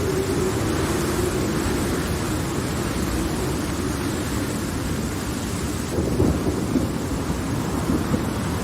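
Steady heavy rain with low rolling thunder from a severe thunderstorm, the rumble swelling a little about six seconds in.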